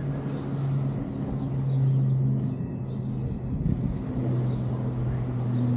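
Steady low engine hum of a nearby motor vehicle, its pitch shifting slightly now and then, over general street noise.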